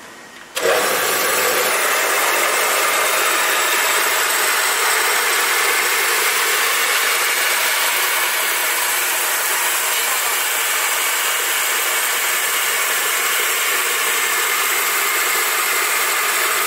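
Small combined rice mill and maize grinder switched on: about half a second in its electric motor and milling rotor come up to speed at once, then run with a loud, steady whirring rush while milling rice, with no change in pitch or load.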